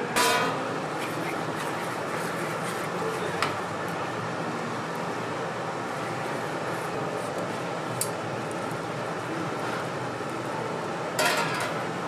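Metal cooking utensils clattering and clinking a few times over a steady background noise. The loudest clatter is at the very start, with another cluster near the end.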